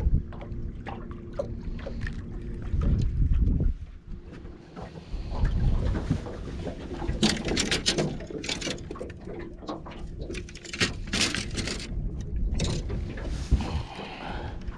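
Water slapping and lapping against a small boat's hull, with wind buffeting the microphone in gusts during the first few seconds.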